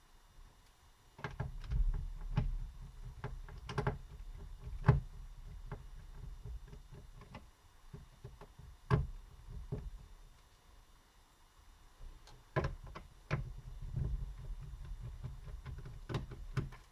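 Screwdriver unscrewing small screws from a laptop's plastic bottom case, with irregular clicks and knocks of the tool and the case being handled, in two spells with a quieter pause between.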